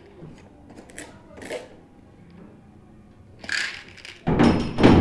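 Handling noise from a cardboard supplement carton and bottle being turned over in the hands: a few faint rustles, then a loud scuffing rustle near the end.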